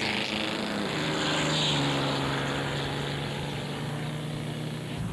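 Racing car engines running at speed, a steady drone whose pitch steps up slightly about a second in and then holds.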